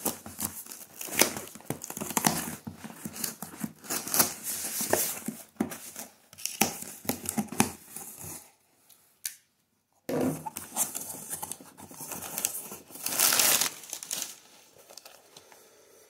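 A folding knife slits packing tape on a cardboard box, then the cardboard flaps are pulled open and plastic-bagged contents rustle and crinkle. There is a short break about halfway, and a louder burst of crinkling a little before the end.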